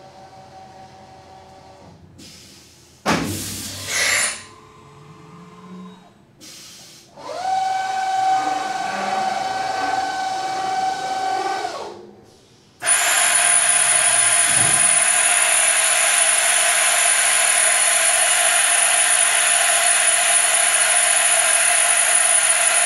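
CNC machining center's automatic tool change, with brief mechanical clunks and then a whir lasting a few seconds as the tool goes back into the carousel. This is followed by a loud, steady compressed-air blast hissing through the spindle for about ten seconds, clearing leftover coolant, which cuts off sharply.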